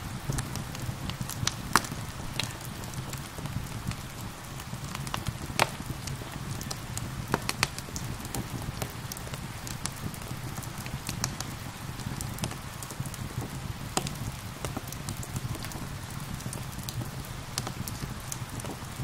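Wood fire crackling with irregular sharp pops, over a steady hiss of gentle rain.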